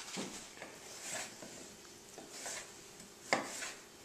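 A few scattered knocks of a knife cutting cucumbers on a cutting board, the sharpest near the end.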